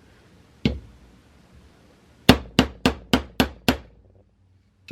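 Chasing hammer striking wire on a metal bench block to flatten a wire link: one blow, then a quick run of six sharp strikes at about four a second.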